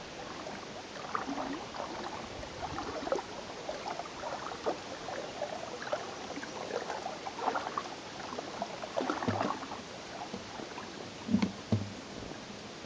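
Water lapping and splashing against an inflatable pontoon boat as it moves through the water, in irregular small splashes and gurgles. Near the end come two dull knocks about half a second apart.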